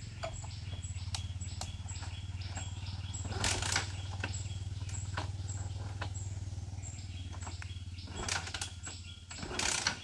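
Bajaj Pulsar NS160 motorcycle's single-cylinder engine running steadily with a low hum, its electric self-starter not working. The hum dies away about eight seconds in, and a few short rushes of noise come over it.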